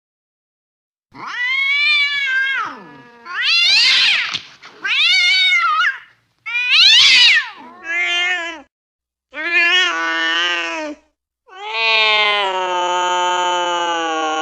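Domestic cat yowling angrily: a string of about seven drawn-out caterwauls that rise and fall in pitch, the last one long and held nearly steady.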